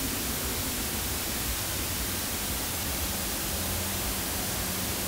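Steady hiss of static noise, even and unchanging, with a low rumble beneath it.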